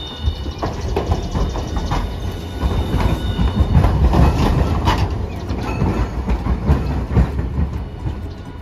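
Hiroden Green Mover LEX low-floor tram rolling past close by over track switches, its wheels clacking repeatedly over the rail joints and crossings with a low rumble, loudest about four seconds in.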